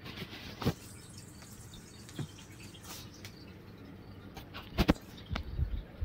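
A few scattered light clicks and taps, with two sharp knocks close together about five seconds in and a low thump just after.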